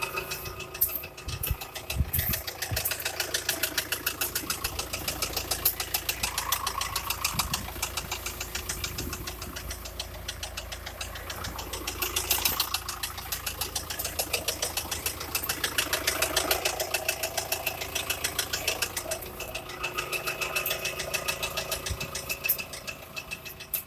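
Engine running with a regular, rapid knock repeating throughout.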